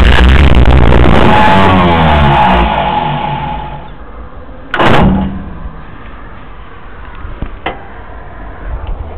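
Jaguar J60 straight-six engine being cranked over hard for a start attempt, then winding down with falling pitch as the cranking stops and it fails to catch. A second brief burst of cranking comes about five seconds in.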